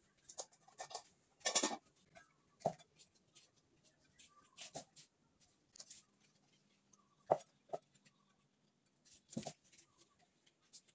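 Scattered knocks and clicks of hands-on kitchen work, unevenly spaced with a few louder knocks: an aluminium pot lid being set on, bok choy handled in a stainless steel bowl, and a cleaver tapping on a wooden chopping board.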